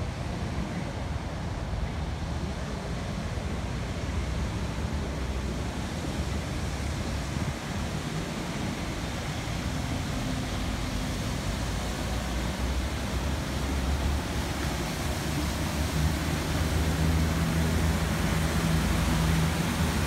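Khlong Saen Saep canal commuter boat approaching, its diesel engine's drone growing steadily louder as it draws near. The water churning in its wake is heard near the end.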